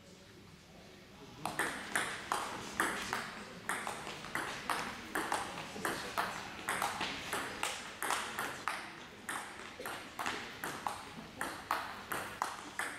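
Table tennis rally: the ball clicks sharply off the rackets and the table in a quick, even back-and-forth rhythm of two or three hits a second. It starts about a second and a half in and stops near the end.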